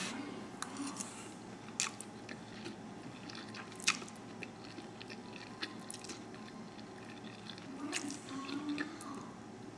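A person eating spaghetti: quiet chewing and slurping of the noodles, with a few sharp clicks.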